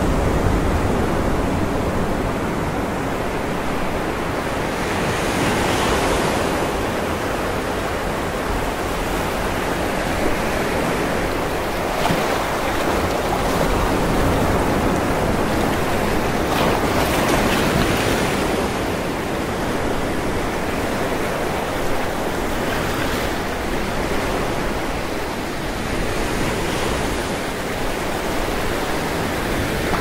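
Sea waves breaking and washing up a pebble beach. The surf is a steady rush that swells every five or six seconds as each wave comes in.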